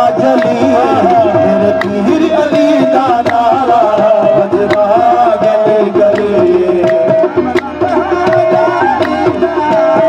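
Live qawwali: male voices singing over harmonium, with a steady held reed note, rhythmic percussion and hand clapping.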